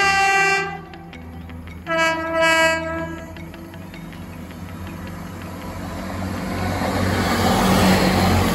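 Train's two-tone horn sounding: a note at the start, then another blast about two seconds in. The train's running rumble then builds steadily as it comes past.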